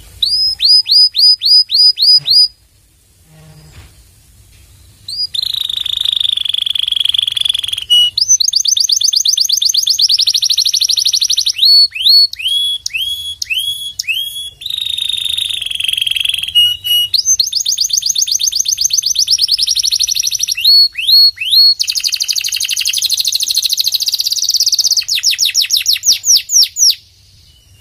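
Domestic canary singing a long, loud song of repeated phrases. Each phrase is a run of quick, falling whistled notes or a fast rolling trill. There is a pause of about two seconds shortly after the start.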